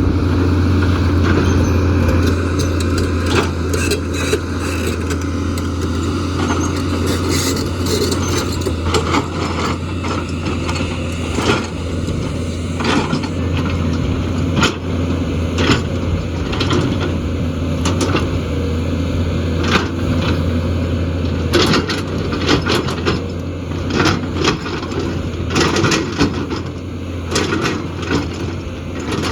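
JCB excavator's diesel engine running steadily, with repeated sharp knocks and clatter of rock against the bucket and ground as it clears a slope.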